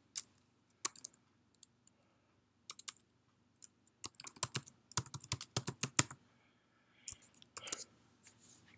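Typing on a computer keyboard. There are scattered key presses at first, then a quick run of keystrokes from about four to six seconds in, and a few more presses near the end.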